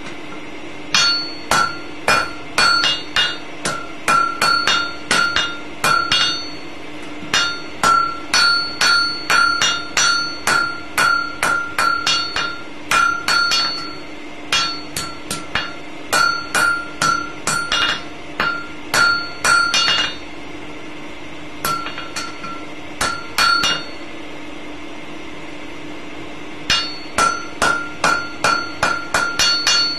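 Hammer blows on hot steel while forging tongs, about two a second, each with a clear metallic ring. They come in runs with short pauses between, over a steady low hum.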